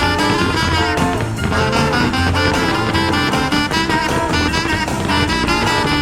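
Swing-style pop music with brass and saxophone playing an instrumental passage without singing.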